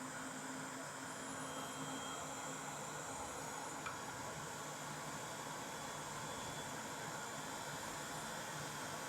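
Steady hiss and faint hum of a small fan running, with one faint click about four seconds in.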